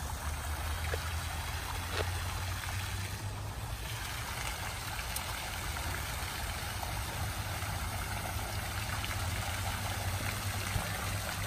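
Steady running water trickling, with a low, even rumble beneath it.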